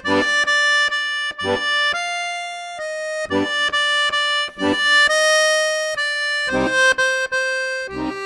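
Slow accordion melody of held, reedy notes, with short low bass-and-chord strokes every second or two underneath.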